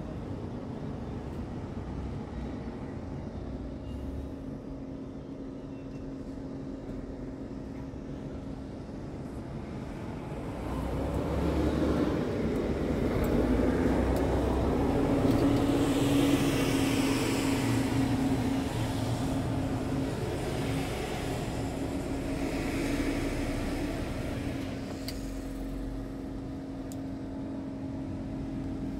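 Truck diesel engine idling, heard from inside the cab as a steady hum. The sound swells louder and brighter for about a dozen seconds in the middle.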